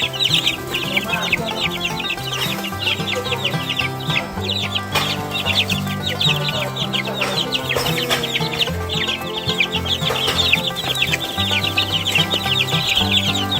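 Many two-week-old Barred Rock chicks peeping at once in a dense, unbroken chorus of high chirps, stirred up by a treat of cooked egg. Background music runs underneath.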